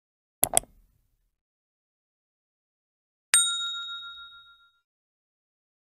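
A quick double mouse-click sound effect, then about three seconds later a single bright bell ding that rings on and fades out over about a second and a half: subscribe-button and notification-bell animation sound effects.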